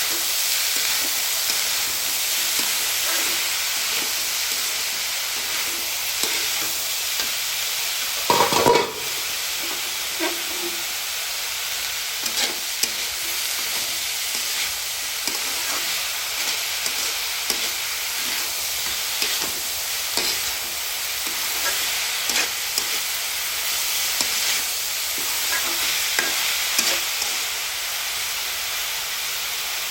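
Chopped banana blossom sizzling in hot oil in a pan while being stirred, with steady frying hiss and many small spatula scrapes and clicks against the pan. One louder, brief clatter comes about eight and a half seconds in.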